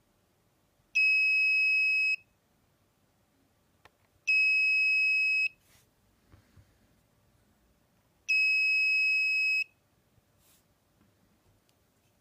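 Small piezo buzzer on a Raspberry Pi light-sensor breadboard circuit sounding three steady, high-pitched beeps, each about a second long, repeating every three to four seconds.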